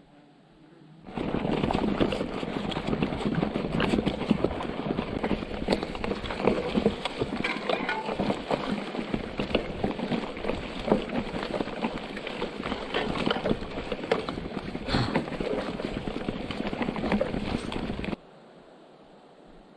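Mountain bike rattling and clattering over an overgrown railway bed, with many close-spaced knocks as it bumps over the old sleepers and grass and brush swishing against the frame and wheels. It starts abruptly about a second in and stops abruptly near the end.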